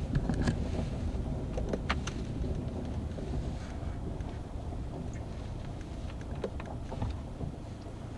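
Steady low rumble of tyres and road heard inside the cabin of a Hyundai Santa Cruz, easing slightly as the truck rolls on with its engine starved of fuel, with a few light clicks.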